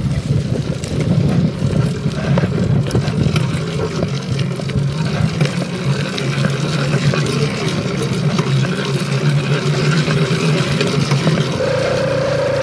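Two-stroke motorized-bicycle kit engine running under way, with an uneven, fluctuating buzz; near the end it settles into a steady, even hum.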